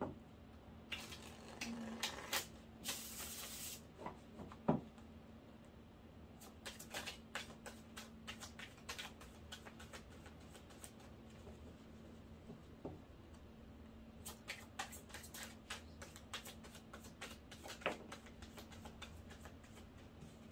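Tarot cards being shuffled and handled by hand: runs of soft card clicks and flicks, with a denser riffling burst about three seconds in.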